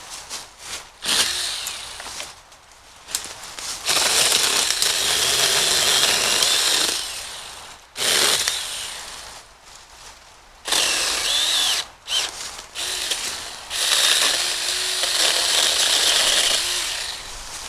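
Small battery-powered 6-inch mini chainsaw running in several bursts as it cuts brush, the two longest lasting about three seconds each. Clicks and quieter gaps fall between the runs.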